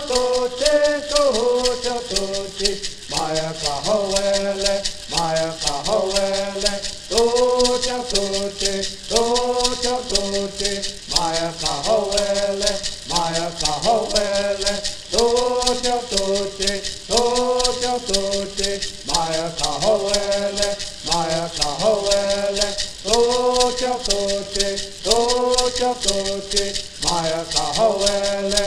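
Men singing a traditional Serrano bird song in unison, short sung phrases repeated one after another, over the continuous rapid shaking of gourd rattles.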